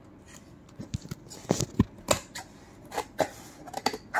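Kitchen knife cutting the packing tape along the top seam of a cardboard box: a run of sharp, irregular scrapes and clicks, starting about a second in.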